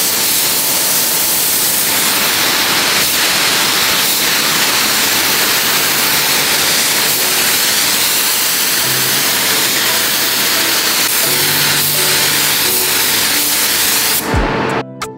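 Steady loud hiss of compressed air and atomised paint from a gravity-feed HVLP spray gun laying the last coat onto a car bumper and fender. Background music comes in faintly partway through, and the hiss stops just before the end as plucked guitar music takes over.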